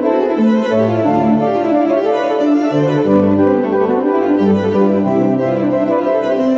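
Instrumental background music with a moving bass line and rising and falling keyboard arpeggios over held notes.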